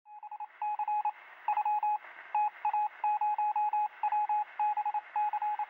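Morse code beeping as a sound effect: one high beep tone keyed in short and long pulses, in irregular groups, over a faint radio hiss.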